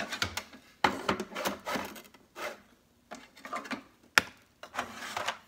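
Objects being handled on a kitchen counter: irregular rustling and clattering, with a sharp knock about a second in and another about four seconds in.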